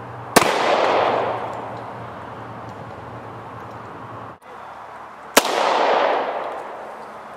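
Two handgun shots about five seconds apart, each a sudden report followed by an echo that dies away over about a second and a half.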